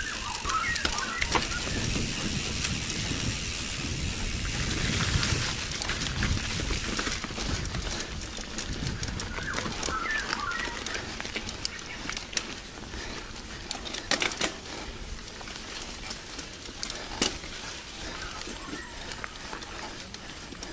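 A mountain bike rolling down a dirt trail: tyres rumbling over the ground with a rush of wind on the microphone, loudest in the first few seconds, and sharp rattles and knocks from the bike over bumps. Birds chirp faintly now and then.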